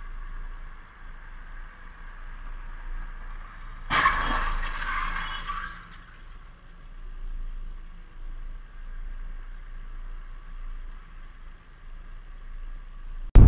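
Two cars colliding in an intersection: a sudden crash about four seconds in, followed by about two seconds of crunching and scraping that fades away. A steady low hum runs underneath.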